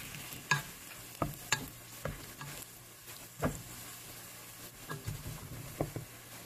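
Diced onions sizzling in butter in a metal stockpot as a plastic slotted spoon stirs them, with scattered knocks and scrapes of the spoon against the pot.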